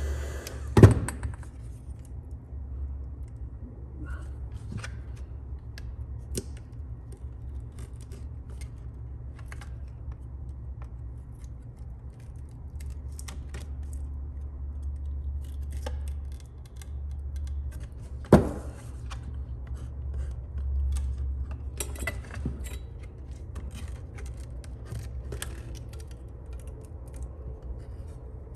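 Adhesive tape and plastic crackling and clicking as a phone's glass back is pried loose. There are two sharp knocks, about a second in and again about 18 seconds in, over a steady low hum.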